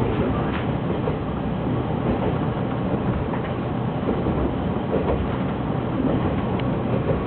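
Isumi Railway KiHa 52 diesel railcar under way, heard from inside the passenger cabin: its DMH17H diesel engines running hard over the steady rumble of wheels on rail, with a few faint clicks.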